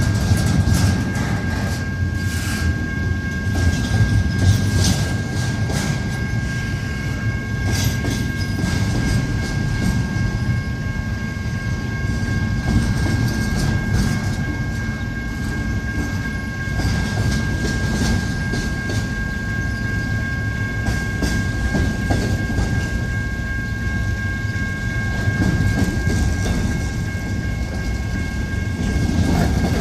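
Cars of a Canadian Pacific intermodal freight train rolling past, with steady low rumble and irregular wheel clicks over the rail joints. A steady high ringing tone sounds alongside.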